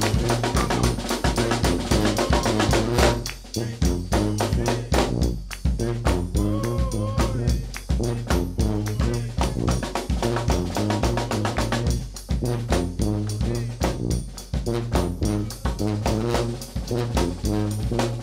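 New Orleans brass band playing an up-tempo groove: a sousaphone bass line under bass drum and snare, with horns and hand claps on top.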